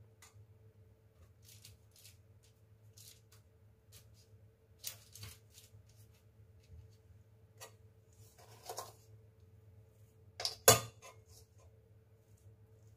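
Quiet, scattered taps and light clicks of hands scooping and shaping cookie dough from a stainless steel pot and pressing it onto a parchment-lined baking tray, with one sharp clink about ten and a half seconds in. A steady low hum runs underneath.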